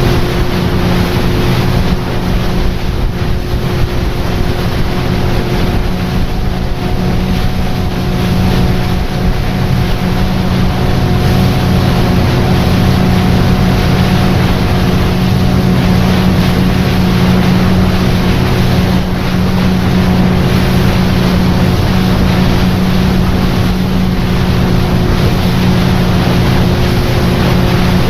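A motorboat's engine running steadily at an even pitch while under way, with water rushing past the hull and wind on the microphone.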